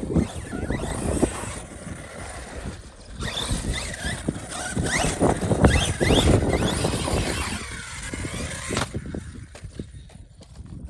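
Arma Fireteam 6S RC car's brushless electric motor whining up and down in pitch as it is throttled, with repeated knocks and clatter from the car hitting and scrabbling over the ground.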